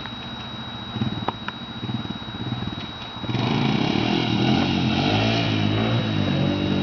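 ATV engine running at low throttle, with a couple of light clicks, then the throttle opens about halfway through and the engine revs up loudly, its pitch rising and falling as it pulls.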